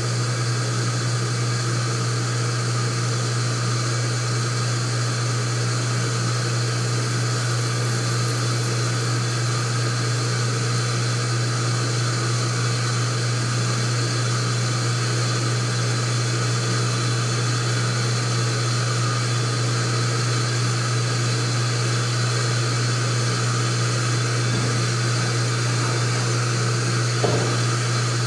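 Steady electrical hum of an HFI 3 kW induction heating system running during a soldering heat, with a brief click near the end.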